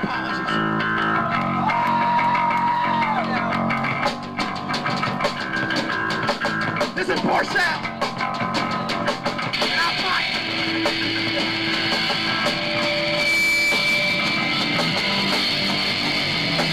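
Live punk band playing: electric guitars, bass and a drum kit with cymbal hits, growing denser and fuller about ten seconds in.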